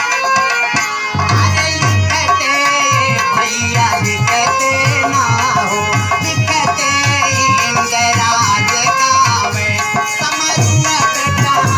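An instrumental break in a kajri folk song: a hand drum beats a steady rhythm under a wavering melody line.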